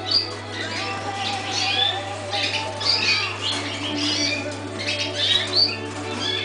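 Several canaries chirping and calling in quick overlapping bursts, over a steady low hum.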